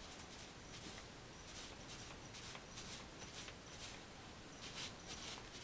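Faint scratchy swishes, repeated irregularly: a cleaning rod pushing a paper-towel patch back and forth through a .22 pistol barrel's bore.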